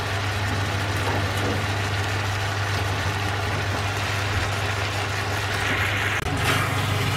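Steady low hum from the electric stove under a pan of shrimp and vegetables simmering in sauce, with a short hiss of stirring about six seconds in.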